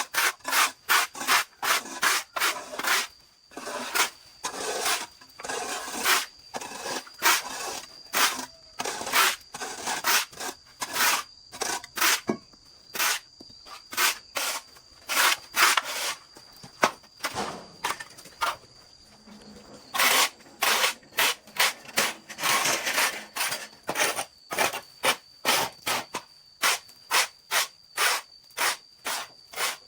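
Hand saw cutting through wood in quick back-and-forth rasping strokes, about two to three a second, pausing for a few seconds past the middle before sawing on.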